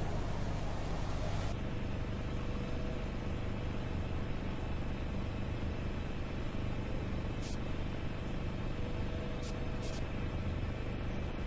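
Steady low rumble with hiss and a faint hum, its character changing about a second and a half in, with a few short faint ticks later on.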